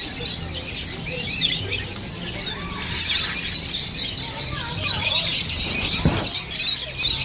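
A flock of birds chattering and squawking continuously, many high calls overlapping, with one louder sweeping call near the end.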